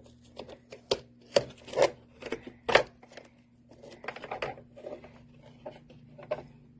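Irregular clicks, taps and knocks of an indoor dryer vent box and its filters being handled, the loudest knocks in the first three seconds, over a faint steady hum.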